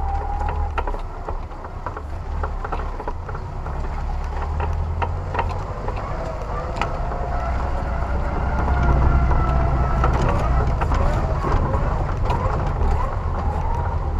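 Off-road 4x4 driving slowly over a rutted mud track: a low engine rumble that swells about nine seconds in, a wavering whine above it, and scattered knocks and rattles as the vehicle jolts over the ruts.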